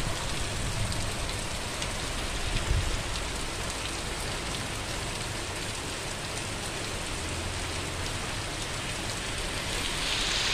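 Heavy rain pouring down steadily, a dense even hiss of drops on trees and roofs. There is a brief low bump about three seconds in, and the hiss grows louder and brighter near the end.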